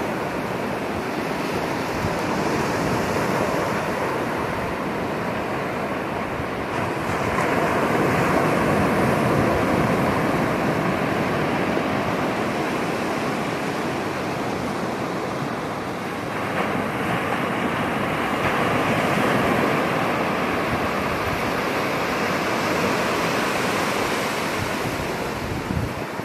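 Ocean surf breaking on a sandy beach: a continuous wash of waves that swells and eases every several seconds.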